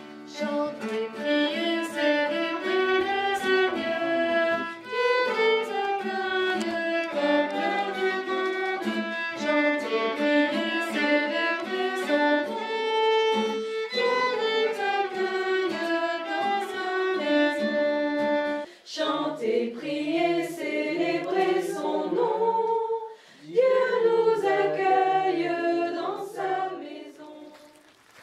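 Violin and acoustic guitar playing a melody together, with voices singing along. The music breaks off briefly twice in the second half and fades out near the end.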